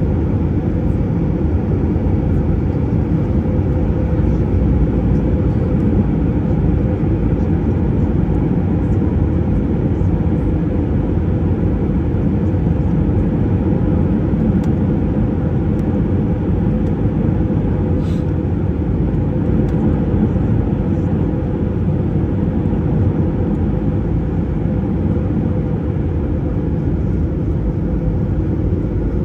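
Jet airliner in flight heard from inside the cabin: a steady, low rumble of the turbofan engines and airflow that does not change.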